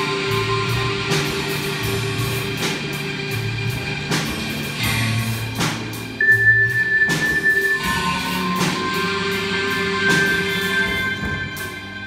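Music played by a robotic machine band: held bass and guitar-like notes with scattered percussive hits, and a high held note entering about six seconds in.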